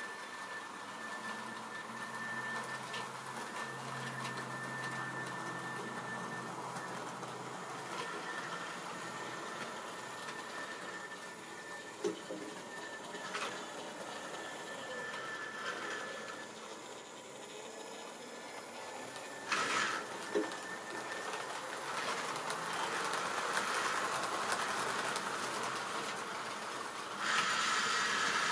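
Model railway train running on the track: a steady electric-motor whine with a few sharp clicks from the wheels over rail joints and points, getting louder near the end.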